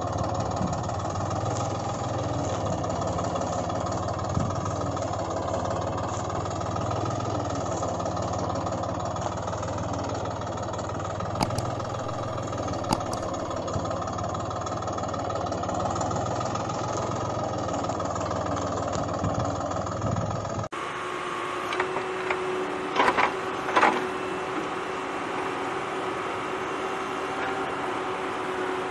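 A tractor engine runs steadily. The engine sound is dubbed over the toy tractor footage. About two-thirds of the way through it cuts off abruptly, and a steady hum with a few short clatters follows.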